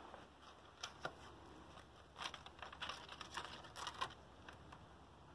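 Faint rustling and light clicks of adhesive edge tape being handled and pressed onto a pickleball paddle's edge guard: a couple of clicks about a second in, then a busier patch from about two to four seconds.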